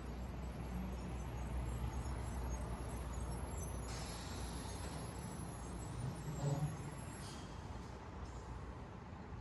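Urban road traffic: a steady low rumble of passing vehicles, with a short hiss about four seconds in and a brief louder low tone about six and a half seconds in.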